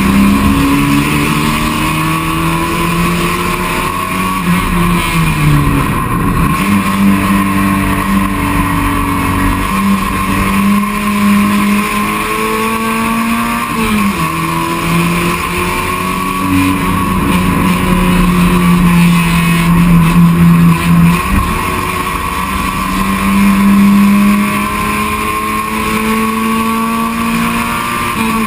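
Touring race car's engine under hard acceleration, heard from inside the cabin. Its pitch climbs steadily and drops sharply at each gear change, about every seven or eight seconds.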